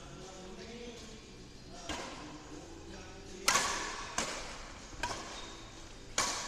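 Badminton rally: rackets hitting a shuttlecock back and forth, five sharp smacks about a second apart, each ringing briefly in a large hall. The loudest smack comes about three and a half seconds in, and another strong one just before the end.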